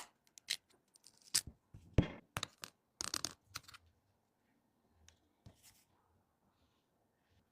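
Hand tools scraping, crackling and tapping against a phone's cracked glass back: a quick run of sharp scrapes for about four seconds, then only a few faint ticks.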